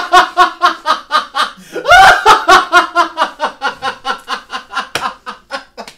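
A man laughing hard: rapid, loud "ha" pulses about five a second, with a bigger, higher-pitched burst about two seconds in, tapering off near the end.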